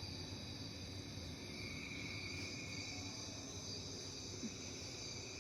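Steady room ambience: an even, high insect-like trill, like crickets, over a low hum, with no change throughout.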